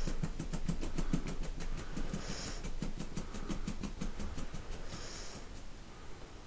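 Empty plastic kvass bottle tapped rapidly, about seven sharp taps a second, stopping about four and a half seconds in, with a couple of short soft hisses.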